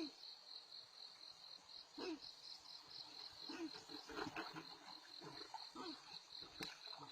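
Insects, likely crickets, chirping in a steady high-pitched trill made of rapid, even pulses, faint, with scattered soft short sounds underneath.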